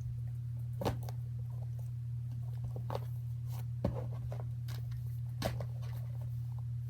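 Stress balls and other fidget toys being handled and set down: a few scattered soft taps and knocks over a steady low hum.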